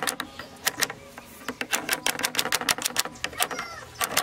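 Rapid, irregular clicking and ticking of metal pliers working on a bamboo rod, with short pauses between runs of clicks.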